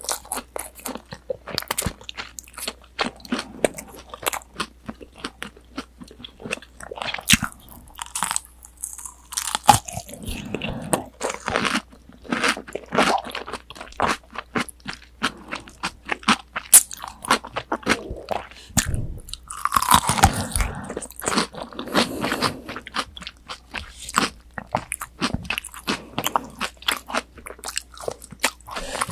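Close-miked chewing of crispy tonkatsu, a deep-fried breaded pork cutlet: many sharp, irregular crunches of the fried crust between bites, with wetter stretches of chewing in between.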